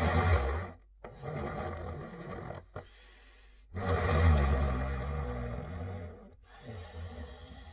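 Cartoon dog character snoring in her sleep: two loud, low snores, each followed by a quieter breath.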